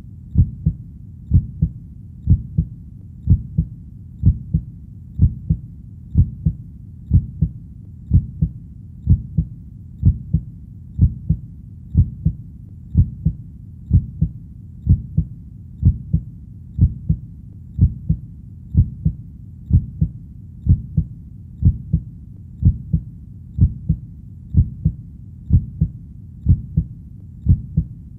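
Steady heartbeat: a low double thump (lub-dub) repeating evenly at about one beat a second.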